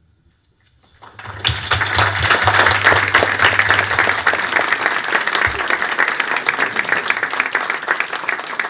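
Audience applauding: dense clapping of many hands that starts about a second in and carries on steadily.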